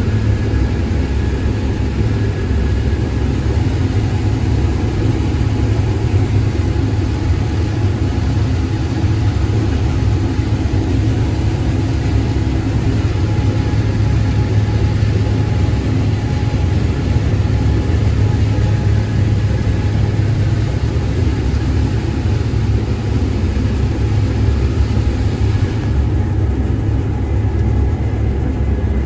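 Combine harvester running steadily while cutting corn: a loud, even, low engine and machine hum with no change in speed.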